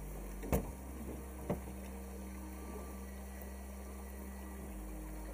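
Steady rush of river water flowing around a drift boat, with two short, sharp knocks, the first about half a second in and the louder of the two, the second about a second later.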